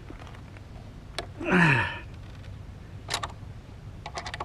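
A few light metallic clicks of hand tools being handled, ending in a quick run of clicks like a ratchet socket wrench starting up near the end. About a second and a half in there is one short sound that falls in pitch.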